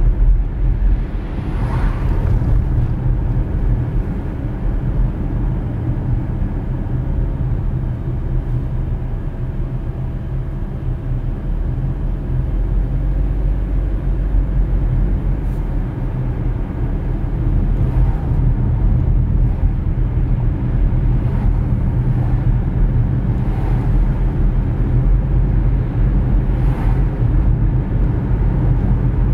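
Road and engine noise of a car being driven, heard from inside the cabin as a steady low rumble, with a few brief swells of higher noise.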